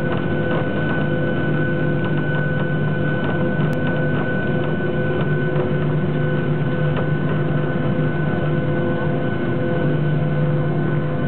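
Boeing 737-800's CFM56-7B jet engines running steadily, heard inside the cabin, as the airliner taxis onto the runway and lines up: a constant hum with a few steady whining tones over it, with no spool-up.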